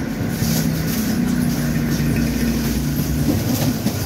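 A motor running steadily, giving a low even hum.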